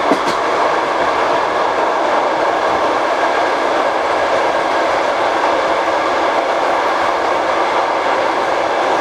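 Passenger train carriage running at speed, its wheels rolling on the rails in a steady, loud rumble heard through an open compartment window, with a couple of sharp wheel clicks over rail joints right at the start.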